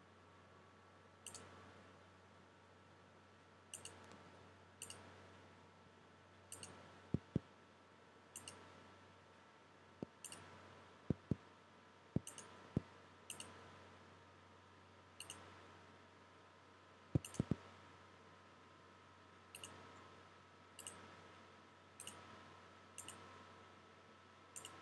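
Computer mouse button clicking at irregular intervals, a click every second or two with a few quick pairs, each click placing a point of a polygonal lasso selection. A faint steady hum runs underneath.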